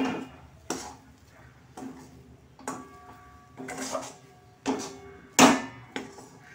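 Steel spatula scraping and knocking against a metal kadai while stirring a thick dhoka lentil-flour dough as it cooks down and stiffens, about one stroke a second, the loudest knock near the end.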